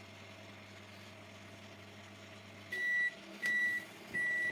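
Samsung microwave oven running with a low, even hum, its normal running sound now that the loud transformer drone is cured. Near the end of its timer the hum stops and the oven gives three long, high end-of-cycle beeps, evenly spaced.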